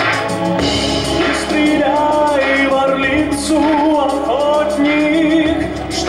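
A man singing a slow ballad into a handheld microphone over instrumental accompaniment; the voice comes in about two seconds in and holds long notes with vibrato.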